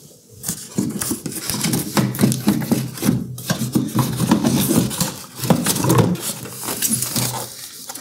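Cardboard and foam packing being pulled out of a new microwave oven: continuous rustling and scraping of cardboard, with light clicks and knocks throughout.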